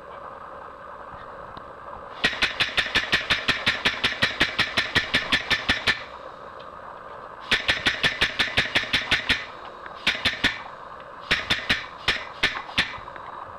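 Hydraulic press brake's pump clattering rapidly, about seven strokes a second, in four runs that get shorter, as the ram is driven down to bend an aluminum support. A steady low hiss runs underneath.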